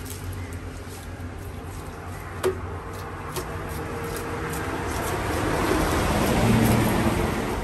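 A few sharp knocks as a knife cuts into a tuna's head against a wooden chopping block, over steady background noise that builds to a peak near the end.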